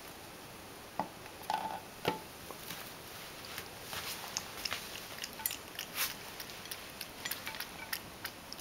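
Ragdoll cat eating dry kibble from a stainless steel bowl: irregular crunching and clicking of kibble against the metal, starting about a second in.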